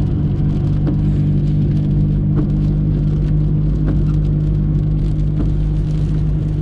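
A steady engine drone from a vehicle running at an even speed, with a few light ticks over it. It cuts off abruptly near the end.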